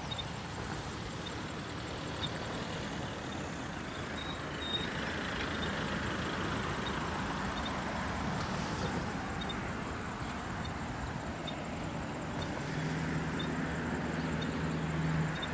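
A road vehicle running: a steady rush of engine and road noise, with a low engine hum growing stronger in the last few seconds.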